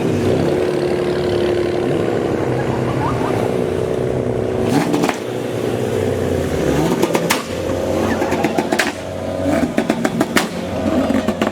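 Car engines running and revving with held, steady engine notes. In the second half comes a run of sharp cracks.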